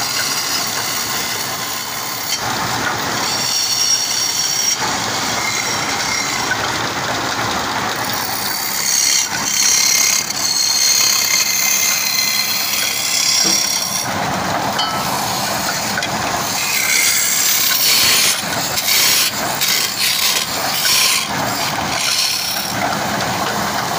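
Woodworking machinery cutting wood: a steady, rough machine noise with high, shrill tones over it. The sound changes several times along the way, and rapid scraping strikes come near the end.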